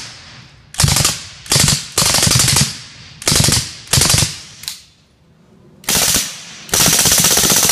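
Suppressed 9mm Ingram MAC-11 submachine gun firing full-auto in short rapid bursts, about eight in all, with a longer burst near the end.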